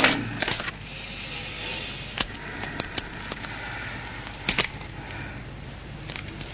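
Quiet handling noises as a small paper item is fiddled with in the hands: faint rustling and a few light clicks, the clearest about two and about four and a half seconds in, over steady soundtrack hiss.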